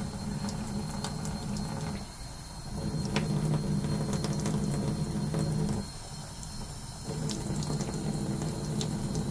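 Kitchen faucet running a thin stream of warm water over the nozzle plate of an HP inkjet cartridge and into the sink, rinsing dried ink from clogged nozzles. The steady splashing goes quieter twice, for about a second each.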